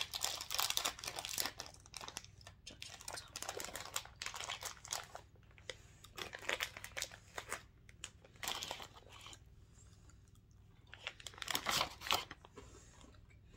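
Plastic snack wrapper of a bag of Cadbury Whispers crinkling and tearing as it is pulled open and handled, dense crackling for the first few seconds and then occasional rustles, with some crunching from the honeycomb chocolates being eaten.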